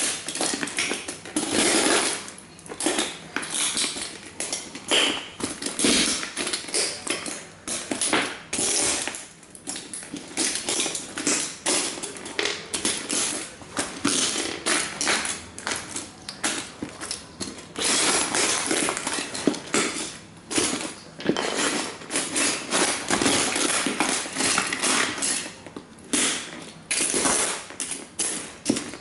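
Plastic model toy trains crunching and cracking under leather cowboy boots, a dense, irregular run of sharp snaps and crackles of breaking plastic.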